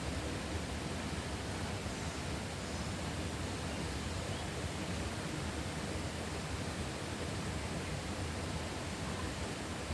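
Steady, even outdoor ambience noise with no distinct events, as in a rural nature recording.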